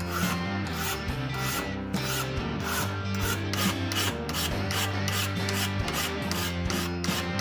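Hand file rasping over the metal of a WW2 tire pump part held in a vise, in quick, even back-and-forth strokes, smoothing the bare surface. Background music plays along.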